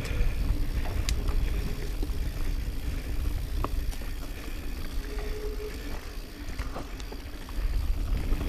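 Mountain bike riding fast down a dirt singletrack: wind buffeting the camera's microphone in a steady rumble, over tyre noise on the trail and scattered clicks and rattles from the bike.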